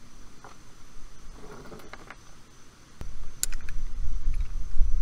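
Handling noise from a flaring tool's metal clamp bar and copper tubing: a few light clicks and knocks, then a low rumble that comes up suddenly about three seconds in.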